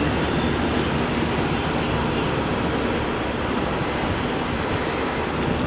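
Passenger coaches rolling past, a steady rumble of wheels on rail with high, drawn-out wheel squeals that come and go.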